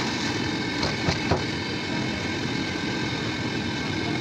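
Steady roadside background noise, with a few light clicks about a second in.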